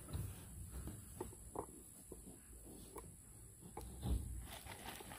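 Domestic pigs snuffling and grunting softly as they eat marshmallows at the fence: a few short, quiet, scattered sounds over a low rumble.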